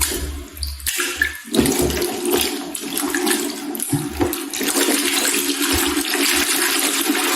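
Slime being squished and stretched by hand, a continuous wet squelching and crackling.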